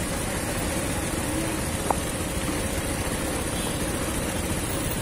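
Motorcycle engines running steadily at low speed, a continuous engine noise strongest in the low end. One short sharp click about two seconds in.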